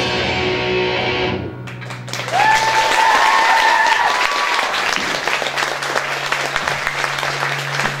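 A rock band's last chord rings out and stops about a second and a half in; then the audience claps and cheers, with one high whoop rising over the clapping for about two seconds. A steady low hum sits under the applause near the end.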